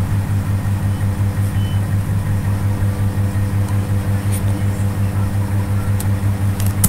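Steady low hum, pulsing a few times a second, with a few faint clicks near the end.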